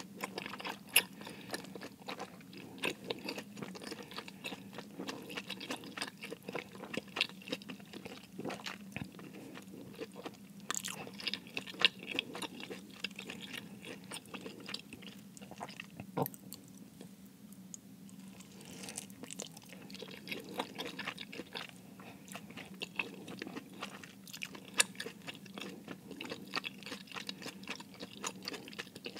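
Close-miked chewing and biting of cheese-filled dumplings, with sticky mouth clicks and occasional crunches coming irregularly throughout.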